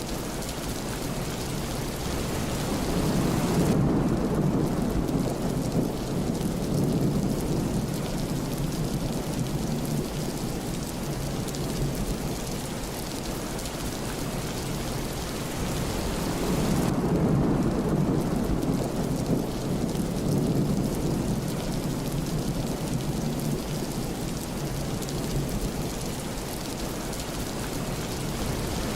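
Steady rain falling, with thunder rumbling low and long twice, a few seconds in and again just past the middle.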